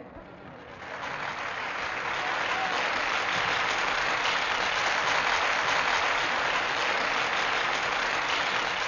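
Large stadium crowd applauding, swelling up about a second in and then holding steady, on an old film soundtrack.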